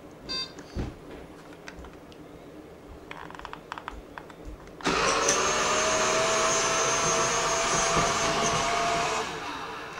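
Roomba 4110 robot vacuum's motors starting up about five seconds in and running with a steady whir and whine, easing slightly near the end, as it is commanded to drive forward. The owner suspects the robot has the 'circle dance' fault, where it spins instead of going straight. A few faint clicks come before it.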